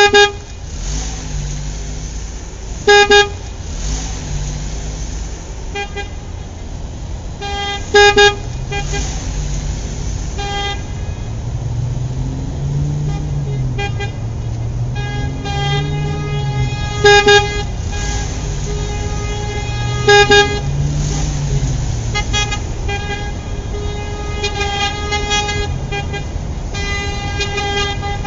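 Car horns honking in traffic: many short toots and longer blasts overlapping. Loud double toots stand out near the start and again about 3, 8, 17 and 20 seconds in, over a low wavering rumble.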